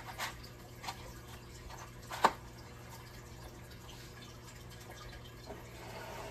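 Small handling clicks and taps, a few scattered ones and one sharper click a little over two seconds in, over a faint steady hum.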